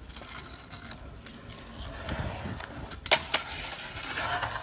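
Freestyle kick scooter's wheels rolling over rough asphalt, then one sharp clack about three seconds in as the scooter hits a concrete ledge, followed by scraping along the ledge.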